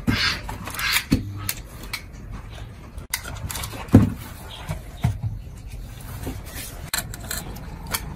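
Handling noise from a Technics SU-7700 amplifier's circuit board and metal chassis being turned over and set down on a workbench: a few dull knocks, the loudest about four seconds in, with scattered small clicks and rustling over a steady low hum.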